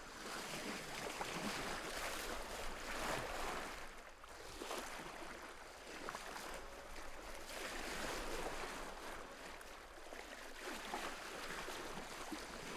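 Sea waves washing in and drawing back, a rushing surf that swells and fades every few seconds.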